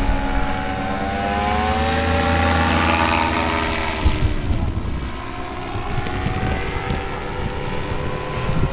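Off-road race car engine revving, its pitch climbing over the first few seconds, dropping about four to five seconds in, then rising and falling again.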